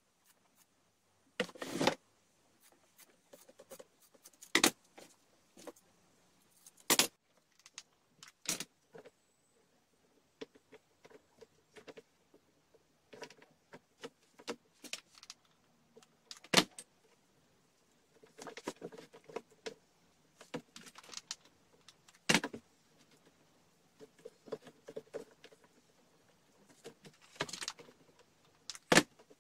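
Handling noises: scattered sharp clicks and knocks of hard plastic, with soft rustling in between, as the handle of a plastic basket is wrapped with a strip of material.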